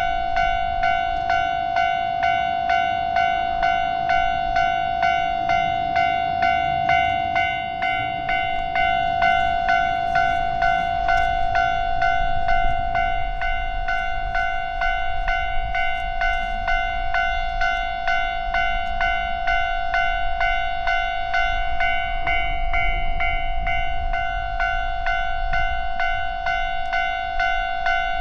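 Japanese railway level-crossing warning bell ringing steadily, a bright repeated ding about three times every two seconds.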